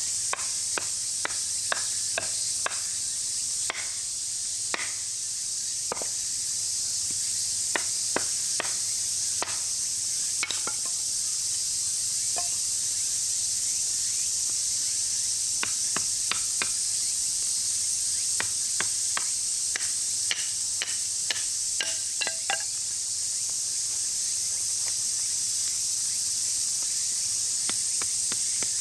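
Small wood fire crackling, with sharp irregular pops, over a steady high chorus of insects.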